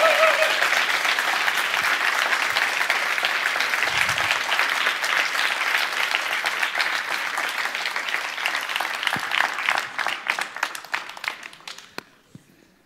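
Audience applauding, full and steady at first, then thinning to scattered single claps and dying away about ten to twelve seconds in.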